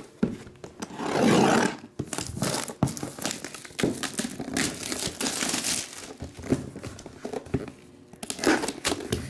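Clear plastic shrink wrap being torn and crumpled off a cardboard box: a run of crinkling rustles, loudest about a second in, easing off and picking up again near the end.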